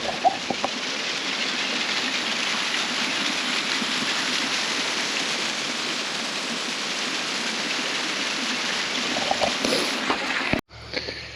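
Water rushing steadily over an old mill dam on a creek, as a constant rush. It cuts off suddenly near the end.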